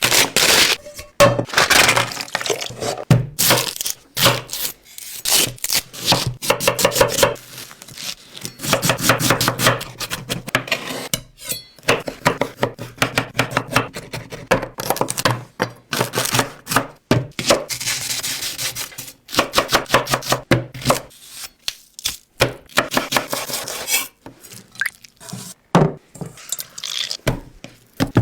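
Close-miked ASMR eating sounds: crunchy bites and chewing of food in irregular runs of crackles with short pauses between them.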